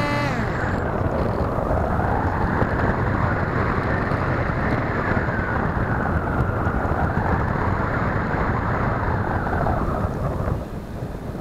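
The whine of an RC model glider's electric motor and propeller cuts off just after the start. Then loud wind rush over the onboard camera takes over as the plane glides, swelling and easing with airspeed and dipping briefly near the end.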